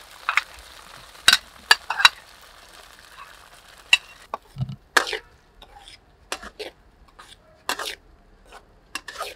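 Metal spatula scraping and knocking against a steel wok while stirring fried garlic and a thick red sauce in hot oil, in a dozen or so sharp strokes. Under the strokes the oil sizzles for the first few seconds, then dies down.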